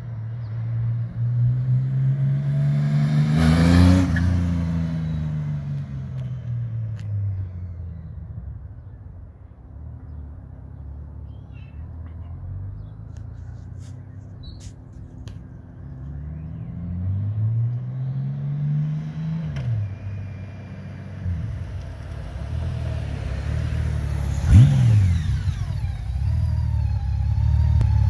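Honda Valkyrie F6C's flat-six engine through a Yoshimura aftermarket exhaust, rising in pitch and then falling as the bike rides past, and doing so again later. It then runs steadily at the curb, with one sharp throttle blip about three-quarters of the way in.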